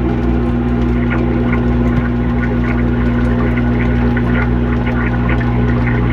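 Samsung dishwasher's wash pump running with a steady hum, heard from inside the tub, with water spraying and spattering irregularly over it.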